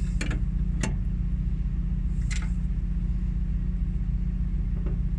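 A steady low machine hum runs throughout, with three short metallic clicks from hydraulic fittings and tools being handled.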